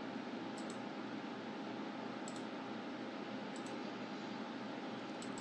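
Steady low hiss of room tone picked up by the narrator's microphone, with a few faint, short ticks scattered through it.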